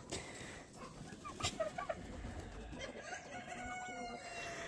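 Chickens clucking faintly, with a long drawn-out call from a fowl in the second half.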